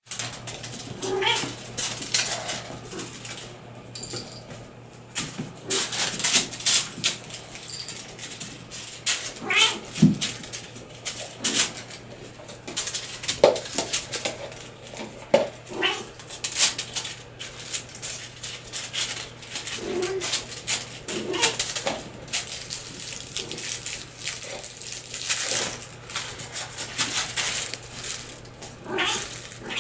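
Six-week-old Bengal kittens mewing now and then as they play, over frequent sharp clicks and taps of toys and paws on a stone floor. A steady low hum runs underneath.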